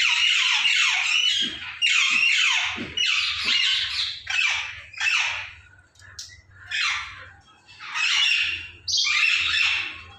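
Parrots squawking: a run of loud, harsh calls, about one a second.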